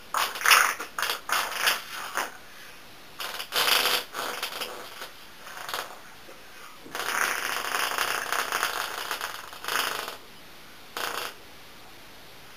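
Fart noises made by blowing through a bendy straw tucked under the armpit, played as a little tune. A quick run of short blasts comes first, then a few more, then one long blast of about three seconds and a short one near the end.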